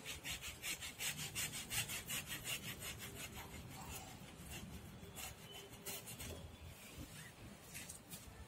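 A hooked metal hand tool scraping and cutting through a tree's root ball to thin out the roots: a quick run of rasping strokes, about five a second, for the first few seconds, then slower, scattered scrapes.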